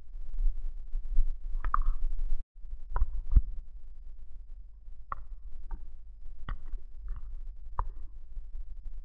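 Footsteps of a person walking uphill through grass, heard as irregular sharp taps and knocks, over the steady low rumble of handling and wind on a body-worn GoPro action camera.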